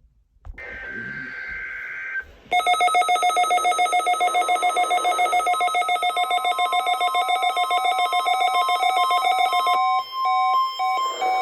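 A weather radio receiver sounding for a NOAA Weather Radio weekly test: a brief buzzy data burst, then a loud, rapidly pulsing warbling alarm for about seven seconds that cuts off abruptly, followed by a few short stepped beeps.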